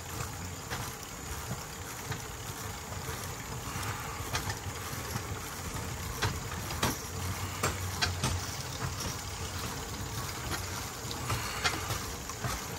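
Rail bike's flanged metal wheels rolling along old railroad track: a steady low rumble with sharp clicks and knocks every second or two.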